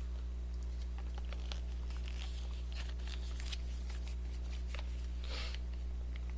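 Plastic spout pouch of konjac water jelly crinkling as it is squeezed, with small wet clicks as the jelly is sucked and chewed, and one short slurp about five seconds in. A steady low electrical hum runs underneath.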